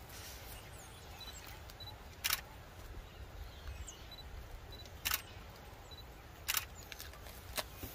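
Camera shutter firing single shots at irregular intervals: four plain clicks and a few fainter ones, over a low steady rumble.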